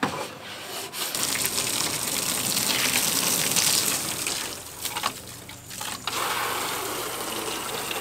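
Garden hose spraying water onto a plastic folding tabletop and splashing off it, rinsing away diluted bleach. The spray dips for about a second near the middle, then comes back.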